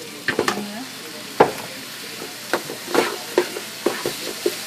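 Fish and vegetables sizzling in a frying pan while a spatula stirs them, the spatula knocking against the pan about seven times, loudest a little over a second in.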